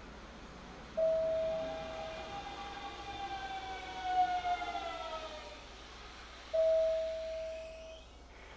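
Hanshin 5500 series electric train's traction motors whining, the whine falling slowly in pitch as the train brakes. The whine lies between two single-pitched chime tones, each starting sharply and fading over about a second and a half.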